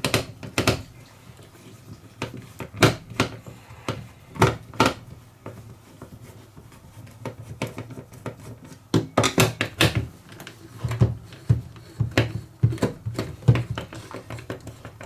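Hand screwdriver working the screws out of a plastic cordless drill housing: scattered clicks and knocks of the tool and the drill body shifting on the bench, coming thicker in the second half.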